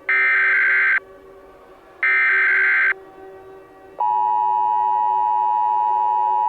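Emergency Alert System SAME header: two one-second bursts of digital data tones, about a second apart. About four seconds in, the steady two-tone EAS attention signal begins.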